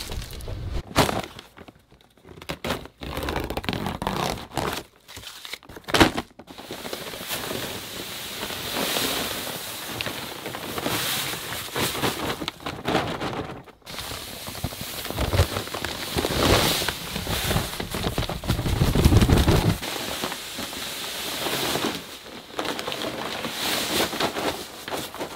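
Paper feed sacks crinkling and tearing as they are handled and emptied, with dry feed pouring into a plastic barrel.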